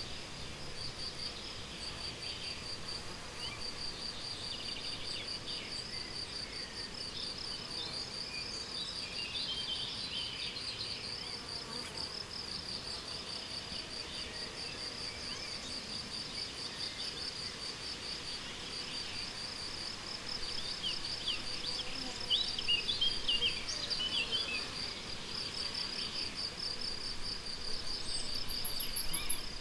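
Crickets singing in a steady, pulsing chirp, with songbirds calling in short twitters now and then, busiest about a third of the way in and again around three-quarters through.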